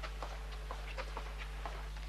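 A steady low hum with light, irregular clicks or taps, a few each second.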